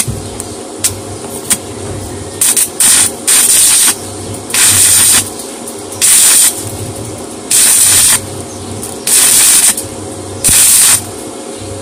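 Stick electrode arc welding on thin steel tubing: the arc crackles and hisses in about eight short bursts of roughly half a second each, struck again about every second and a half, with a quieter low hum in between. This is welding in short spots, which the welder holds is all that thin tubular steel allows.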